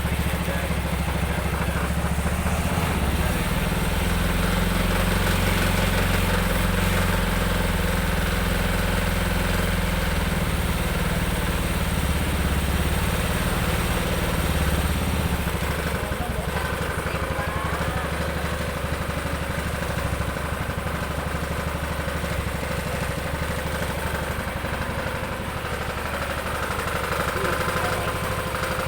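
Upgraded Jialing 200cc engine in a Kaisar three-wheeled motorcycle, running steadily at about idle.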